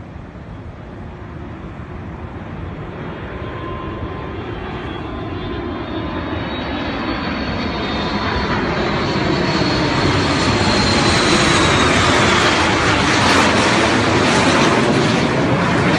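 Jet flyover of a large four-engine airliner with a formation of small jets, growing steadily louder as they approach. Near the end, as they pass overhead, a whine falls in pitch.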